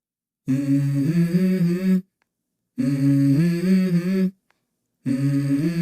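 Intro of a backing song: a voice humming a short melody in three phrases, with silent breaks between them.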